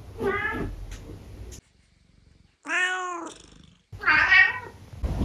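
Domestic cats meowing: three separate short meows from different recordings spliced together, one near the start, one in the middle after a brief silent gap, and one about four seconds in.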